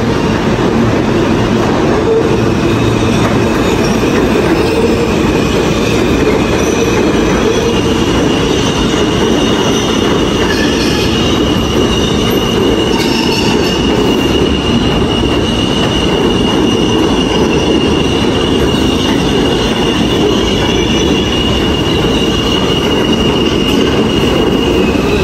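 New York City subway E train of stainless-steel R160 cars running along the platform, a loud steady rumble of steel wheels on rail. A high steady wheel squeal rings over it for most of the time, rising a little in pitch several seconds in and holding until just before the end.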